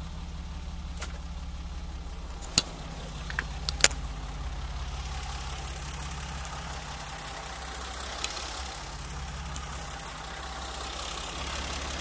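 BMW 325i E30's 2.5-litre straight-six engine idling steadily. A few sharp clicks come about a second in and again between two and four seconds in.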